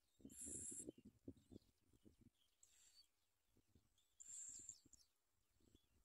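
Bar-winged prinia nestlings giving faint, hissing high-pitched begging calls in three short bursts, with soft low rustles between them.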